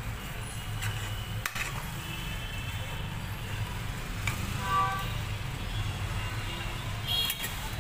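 Metal spoon stirring and squishing through thick mashed aubergine masala in a non-stick kadai, with a few sharp clinks of the spoon against the pan. A steady low rumble runs underneath.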